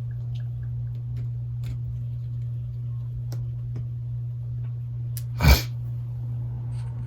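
Faint scattered clicks of a small screwdriver and tiny screws being worked out of a Galaxy Note 8's midframe, over a steady low hum. About five and a half seconds in comes one short, loud, hissing burst.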